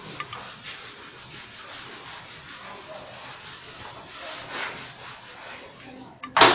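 A whiteboard being wiped with a cloth: a soft rubbing hiss repeated stroke after stroke. A short, sharp sound comes just before the end.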